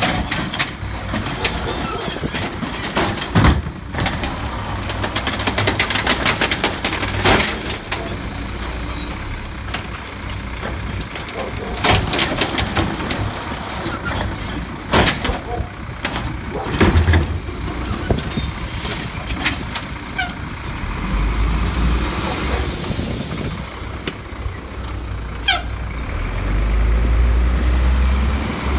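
Automated side-loader garbage truck's arm gripping, lifting and dumping a wheeled cart: a run of clanks and bangs with hydraulic noise. Near the end the truck's diesel engine pulls away with a deeper rumble and a hiss of air brakes.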